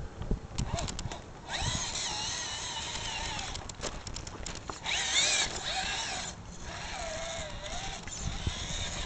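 Losi Night Crawler RC rock crawler's electric motor and geared drivetrain whining in three spells, the pitch wavering up and down with the throttle. Scattered light clicks fall between the spells.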